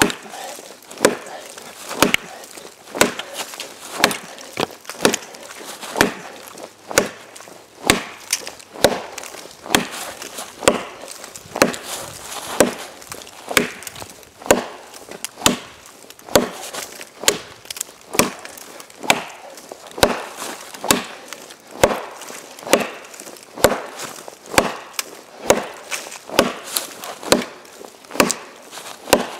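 Mini parang chopping into a frozen ash log about 10–11 cm thick: sharp, even chops of the blade biting into the wood, about one a second.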